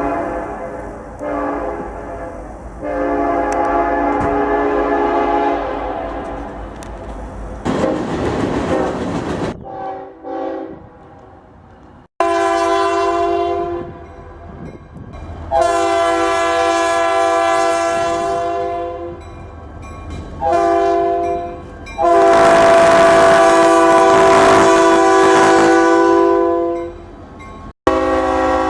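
Locomotive multi-chime air horns sounding chords, in successive recordings. The first has several held blasts and then a stretch of rumbling noise. The second sounds long, long, short, long, the standard grade-crossing signal, with the final long blast the loudest.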